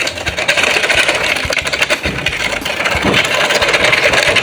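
A toy truck loaded with toy cars moving along the floor, giving a steady, dense clatter of many small knocks.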